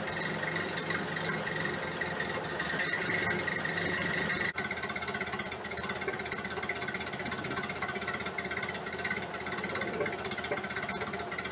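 Ford Model A's rebuilt four-cylinder flathead engine running at a steady idle, heard at the tailpipe, firing evenly. Its exhaust manifold is thought to be leaking.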